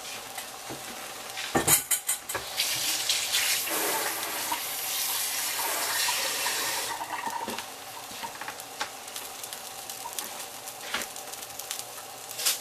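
Egg white sizzling and crackling in herbed olive oil in a cast-iron skillet, growing louder for a few seconds in the middle and then easing. A sharp clack about two seconds in.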